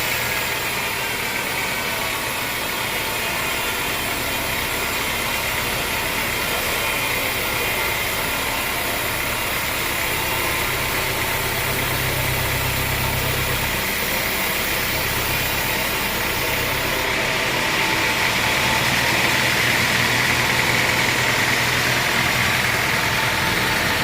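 Engine of a homemade band sawmill running steadily at a constant speed, with no break.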